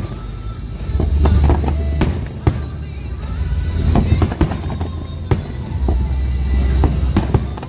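Aerial fireworks going off: a fast string of sharp bangs, with deep rumbling booms swelling about a second in and again about six seconds in, over music.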